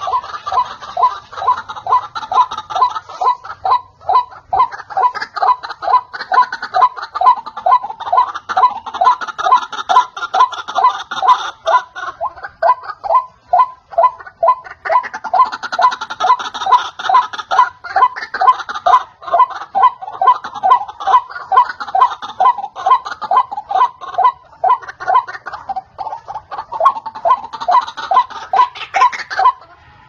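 White-breasted waterhen (ruak-ruak) calling nonstop: a fast chain of harsh, repeated notes, about four a second. This is the call played as a hunter's lure for the bird.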